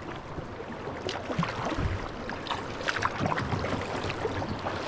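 River current rippling and splashing around a kayak's bow, with scattered small splashes and drips.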